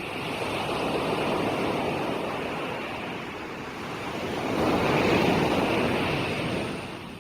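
Ocean waves breaking and washing in, two surges: a smaller one about a second in and a bigger, louder one about five seconds in, which then recedes near the end.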